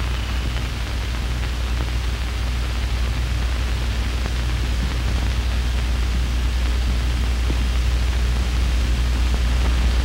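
Steady hiss and a strong low hum from an old, worn film soundtrack, with no music or speech.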